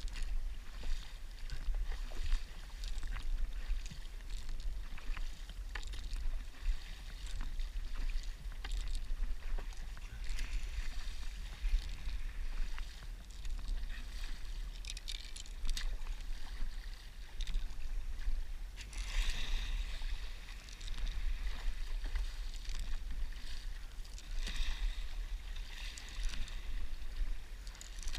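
Stand-up paddleboard paddle strokes: the blade dipping and pulling through the water in an uneven rhythm every couple of seconds, with water splashing off the board's nose and a low wind rumble on the microphone. A louder splash comes about two-thirds of the way through.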